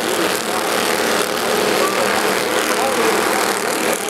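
Engines of a pack of Bandolero race cars running laps on the oval, a steady drone with voices over it.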